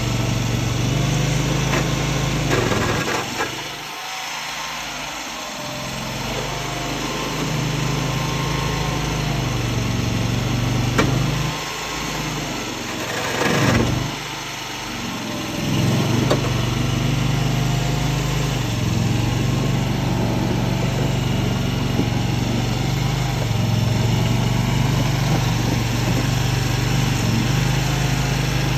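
Small engine of a mini tracked skid steer running steadily. Its note drops off twice as the machine works, and there are a couple of short knocks near the middle.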